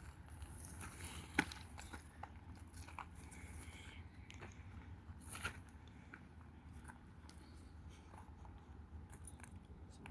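Scattered small clicks and crunches, one sharper about a second and a half in and another about five seconds in, over a low steady hum.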